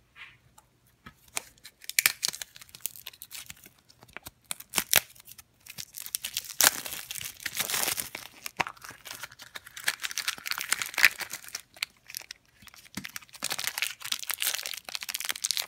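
A crinkly toy blind-pack wrapper being torn open and crumpled by hand: a dense run of sharp crackles and clicks that starts about two seconds in.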